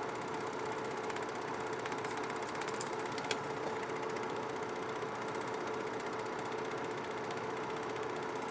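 Home-movie film projector running: a steady mechanical whir with a fast, even clatter from the film transport, and one sharper tick about three seconds in.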